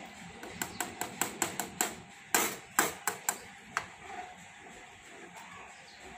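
Steel ladle clinking against a steel pot while stirring kadhi: a run of quick metallic knocks, the loudest near the middle, ending about four seconds in.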